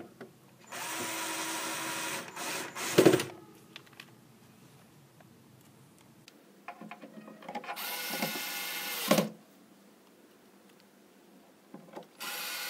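Bosch cordless screwdriver driving screws into the LED display module's frame in short runs. It runs steadily for about a second and a half, ending in a sharp knock. A second run comes near the middle and also ends in a knock, and a third begins near the end.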